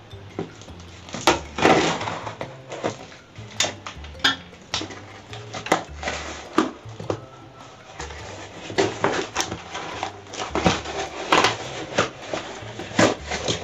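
Hands peeling tape off and pulling open a small cardboard box: irregular rustles, scrapes and knocks of cardboard against the table.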